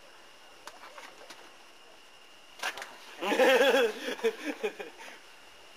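A man laughing heartily for about a second and a half, starting a little past the middle, after a few faint clicks.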